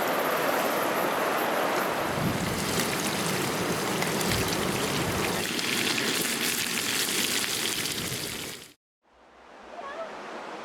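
Shallow river water rushing steadily over stones close to the microphone. It cuts off abruptly near the end, leaving a much quieter background.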